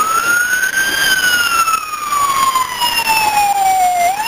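Fire truck siren wailing: its pitch rises to a peak about a second in, falls slowly for about three seconds, then starts climbing again near the end.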